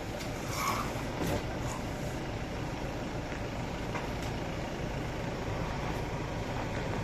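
Steady low rumble of an idling engine, with a few brief handling sounds in the first second or two as a vinyl banner is pulled down.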